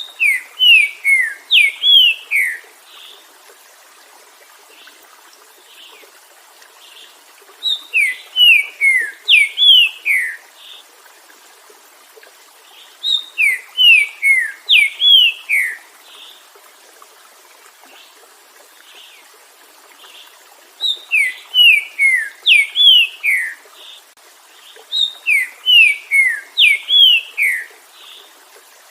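Green-winged saltator (trinca-ferro) singing: five loud phrases of clear whistled notes, each note sliding downward, every phrase lasting two to three seconds with pauses of several seconds between them.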